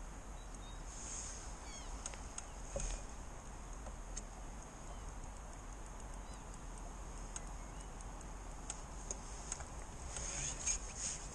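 Steady outdoor hiss with scattered light clicks and a few brief bird chirps. Near the end comes a louder flurry of splashing as a hooked fish thrashes at the water's surface.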